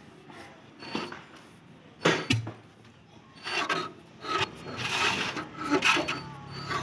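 A few metal knocks, then irregular scraping and rubbing of metal on metal as the pushrods and valve gear of an Eicher diesel engine's cylinder head are worked by hand.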